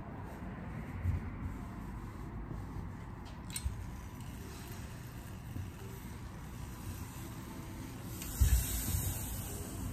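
Professional hose-fed steam iron pressing shirt fabric, with a thump as it comes down on the cloth and a burst of steam hissing for about a second and a half near the end. A few lighter knocks and a click from handling the iron come earlier, over a steady low background noise.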